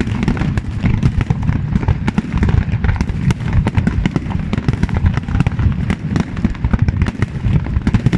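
Fireworks display: a dense, rapid barrage of bangs and crackling bursts, many each second, with heavy low booms underneath.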